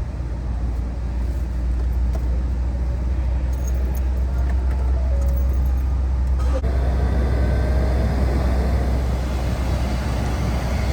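Car engine running with a steady low rumble. About six and a half seconds in there is a click, then a louder steady rushing of air: the AC blower and the newly replaced AC compressor coming on and working.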